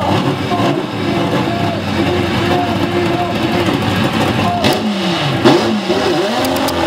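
Drag-race Chevrolet Chevy's engine running with an uneven, lumpy idle, then revved in several quick blips that rise and fall in pitch from about four and a half seconds in, with one sharp loud crack near the middle of the blips.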